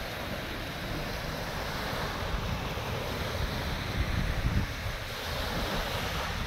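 Wind buffeting the microphone in irregular low rumbling gusts, strongest about four seconds in, over a steady hiss of wind and small waves on the bay.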